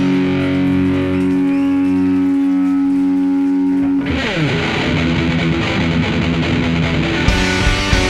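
Rock music with distorted electric guitar. A sustained chord rings for about four seconds, then slides down in pitch halfway through into busier, denser playing.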